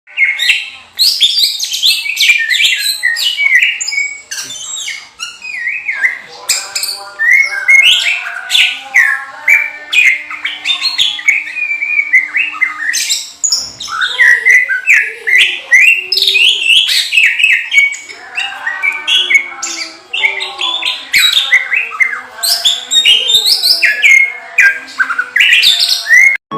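Greater green leafbird (cucak ijo) singing continuously: a long, unbroken run of rapid, varied chirps and whistled phrases.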